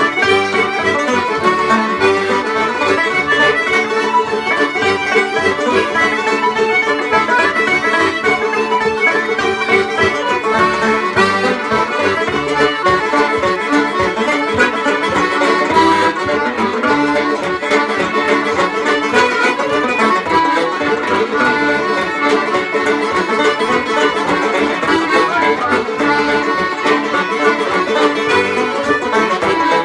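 Button accordion and banjo playing an Irish traditional tune together at a steady, even dance rhythm.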